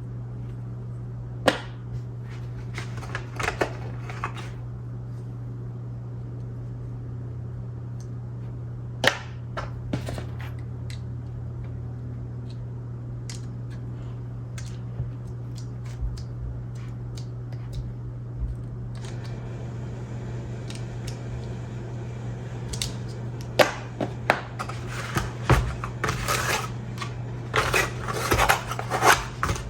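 Camera gear and packaging being handled, making scattered sharp plastic clicks and taps that come thick and fast near the end, over a steady low hum.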